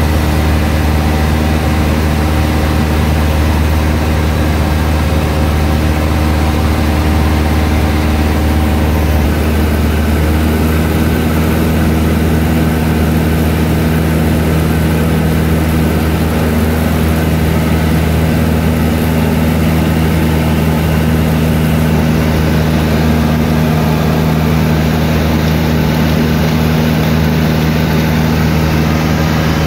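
Cessna 152's four-cylinder Lycoming O-235 engine and propeller droning steadily in cruise, heard from inside the cabin. The tone shifts slightly about ten seconds in.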